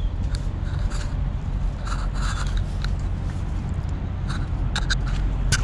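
Steady low rumble of idling diesel semi trucks, with scattered scraping and rubbing from the phone being handled against clothing while walking.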